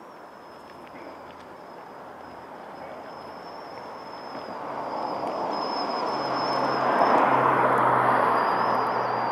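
A passing vehicle swelling to a peak about seven seconds in, then easing slightly, with a low engine hum under the rushing noise. A faint steady high whistle sounds throughout.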